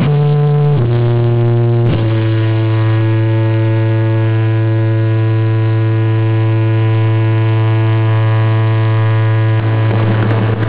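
Loud, distorted electric guitar drone held through the amps. The pitch steps down twice in the first couple of seconds, then a single note sustains steadily and changes near the end.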